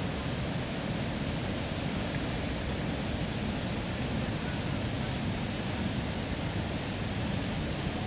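Steady, even rushing noise with nothing standing out from it.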